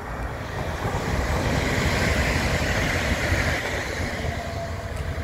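Stadler FLIRT electric multiple unit passing close at speed: a rushing hiss over a heavy low rumble of wheels on rail, swelling to its loudest about two to three seconds in, then easing as it moves away.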